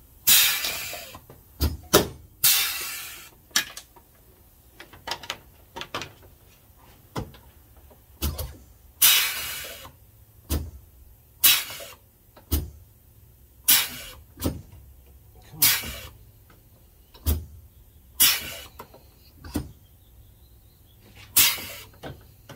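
Pneumatic pop-rivet gun cycling over and over: repeated short bursts of air hiss with sharp clicks between them, every second or two. The gun is short of air pressure, so it takes many pulls to set each rivet.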